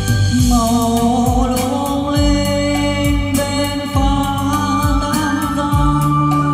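A sung song played loud through an Actpro line array PA system with subwoofers. A singing voice comes in about half a second in over held instrumental tones and a steady low beat.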